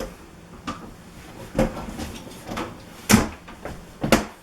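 A shower transfer bench being handled, its frame and seat knocking and bumping about five times, with the loudest knock about three seconds in.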